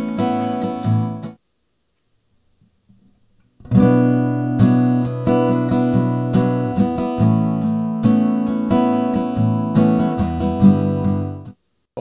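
Playback of a recorded acoustic guitar. One passage stops about a second and a half in, and after about two seconds of silence the guitar starts again and plays until near the end. The later passage is the guitar's under-saddle pickup signal run through a ToneDexter IR preamp, which shapes it to sound like a microphone on the guitar.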